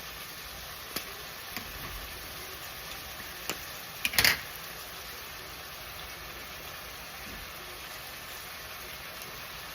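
Kitchen handling noises: a few light clicks and a brief clatter of knocks about four seconds in, over a steady hiss.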